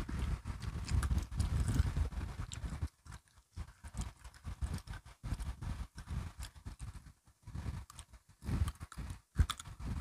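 Close-miked chewing and crunching of crisp biscuit sticks, a quick irregular run of crunches. It is dense for about the first three seconds, then comes in shorter spells with brief gaps between.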